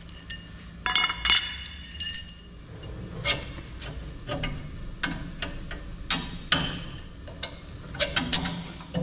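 Metal hardware clinking and ringing as it is handled and set in place: a few sharp ringing clinks in the first couple of seconds, then lighter taps and knocks.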